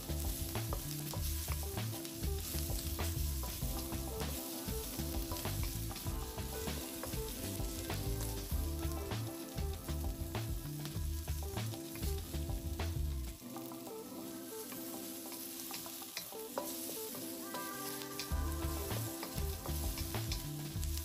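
Vegetables sizzling in a very hot wok in a high-heat stir-fry, with a wooden spatula scraping and tossing them against the pan again and again.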